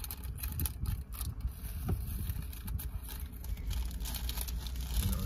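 Plastic candy bag rustling and crinkling in short, scattered bursts as it is handled open, over a steady low rumble.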